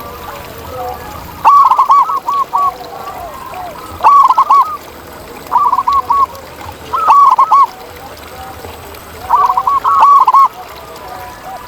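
Zebra dove singing: phrases of quick, staccato cooing notes, repeated every second or two, with about five phrases in all.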